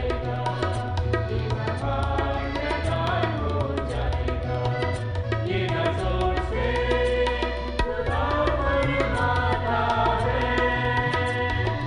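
Music of an Urdu Christian song: a keyboard melody over a steady drum beat, with a man's singing voice coming in about two thirds of the way through.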